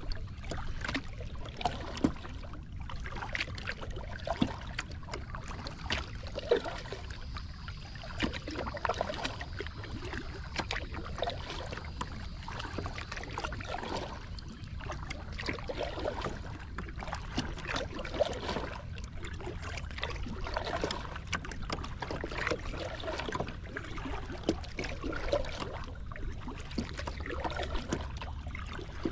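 Small waves lapping and splashing against a plastic kayak hull as it moves across a lake, in many small irregular splashes with a few sharper slaps. A steady low rumble of wind on the microphone runs underneath.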